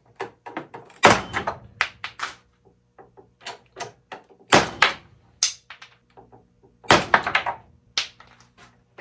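A run of sharp clicks and knocks from glued wooden test blocks being loaded into a shear tester with a hydraulic bottle jack and broken, with loud cracks about a second, four and a half and seven seconds in.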